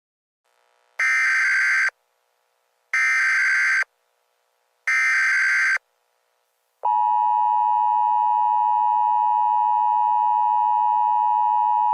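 Emergency Alert System tones: three short data bursts of the SAME header, each about a second long and a second apart. About seven seconds in, a steady two-tone attention signal starts and keeps sounding, the signal that comes just before an alert message.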